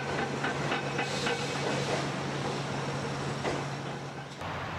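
Wood chip unloading machinery at work: a steady low hum with hiss and a rapid rattling clatter that fades after the first second or two, cut off abruptly near the end.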